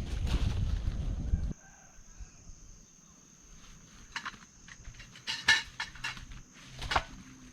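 Gusty wind rumbling on the microphone that cuts off abruptly about a second and a half in. It is followed by a quiet stretch with a faint steady high tone and a few short, sharp crackles.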